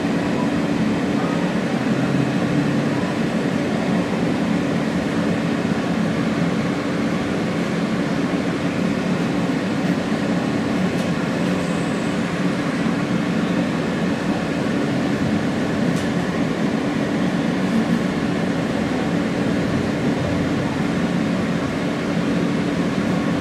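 Steady rumble and hum inside an R160 New York subway car.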